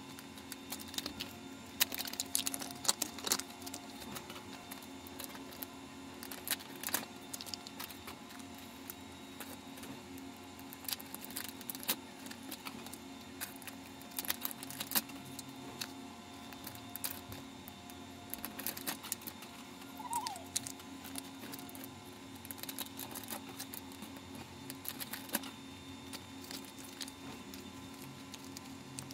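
Plastic food wrappers and pouches crinkling and rustling as they are handled and torn open, in short scattered crackles over a steady low hum.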